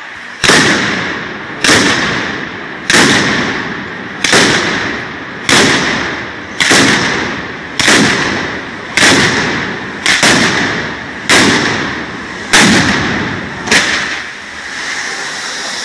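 A batteria of ground firecrackers going off in a chain: about a dozen sharp, loud bangs roughly every 1.2 seconds, each echoing and fading away. The bangs stop near the end, leaving a steady hiss from the spark fountains.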